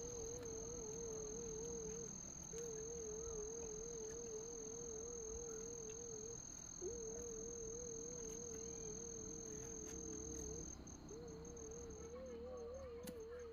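Insects trilling in the vegetation: a steady high-pitched trill that breaks into pulses near the end, over a lower wavering tone that stops and starts every few seconds.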